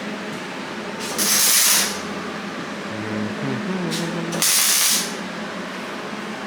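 Two loud hissing sprays, each well under a second, about three seconds apart, with a low falling tone between them.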